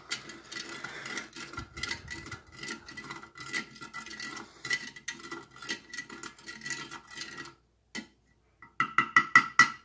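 Spoon stirring orange drink powder into water in a glass tumbler, scraping and clinking against the glass, which rings steadily. After a short pause near the end comes a quick run of sharp, louder clinks.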